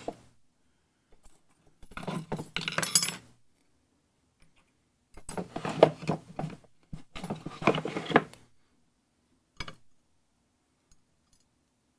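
Pins and small metal parts of a disassembled Segal pin-tumbler lock rattling and clinking against each other and a pinning tray, in three bursts of clatter a second or two long, with one sharp click near the end.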